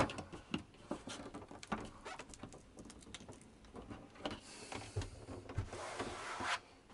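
A hand rubbing, tapping and scraping on a shower-cabin wall panel: scattered small clicks and scratches, then a longer rubbing scrape in the second half that stops shortly before the end.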